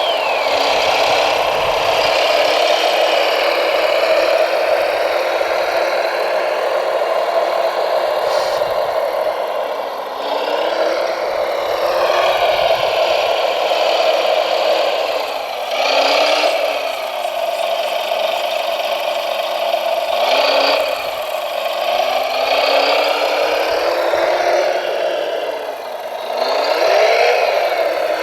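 Radio-controlled model construction machines working, their electric motors and gears whining and rising and falling in pitch several times as they speed up and slow down, over a steady hum.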